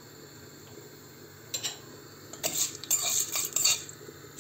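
A metal spoon scraping and clinking against a stainless steel pot, stirring şehriye vermicelli fried in oil. A first scrape comes about a second and a half in, then a busy run of scrapes and knocks in the second half.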